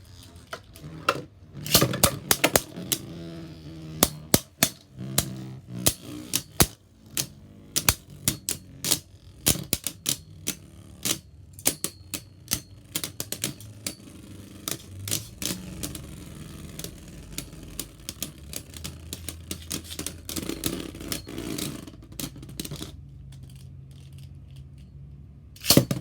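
Beyblade Burst tops clashing in a plastic stadium: rapid, irregular clicks and clacks over a steady spinning whir. The hits thin out after about twenty-three seconds, and one loud clack comes near the end.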